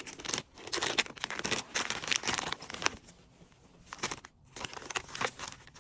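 Plastic packaging crinkling and rustling as small items are handled and packed, in a run of short bursts that pauses about three seconds in and then resumes briefly.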